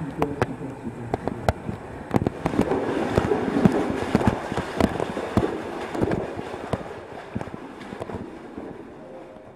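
Rustling and scraping with many irregular sharp clicks and knocks: a caver's gear and the handheld camera brushing and bumping against rock while moving through a tight cave passage. It fades away near the end.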